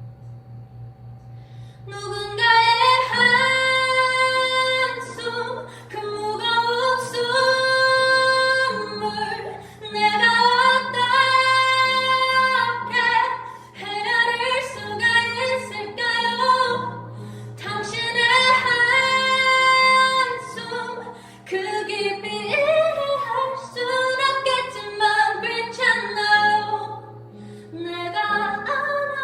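A woman singing solo in long, held phrases over a quiet low accompaniment; the voice comes in about two seconds in.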